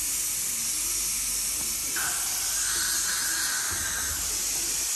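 Dental saliva suction running with a steady airy hiss. A higher-pitched rushing layer joins in about two seconds in and drops away about two seconds later.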